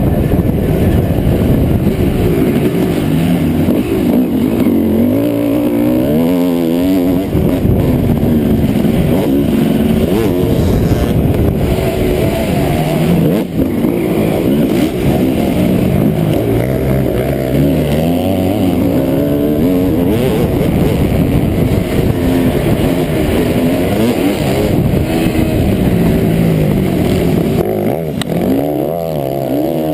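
Suzuki RM250 two-stroke single-cylinder motocross engine heard onboard under hard riding, its pitch rising and falling over and over as the throttle is opened and closed and the gears change.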